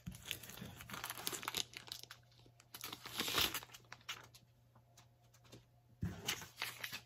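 Plastic comic bag crinkling and tape peeling off as a comic mystery pack is opened by hand, in irregular rustles that are loudest about three seconds in.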